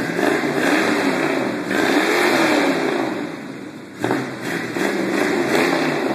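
A 1977 Ford pickup's big-block V8, cold-started after sitting about two months, running loudly out of a side-exit tailpipe. It is revved up and back down, then blipped again about four seconds in.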